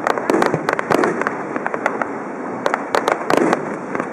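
Fireworks going off: dense crackling and popping from bursting shells, with clusters of sharp cracks about a second in and again past three seconds.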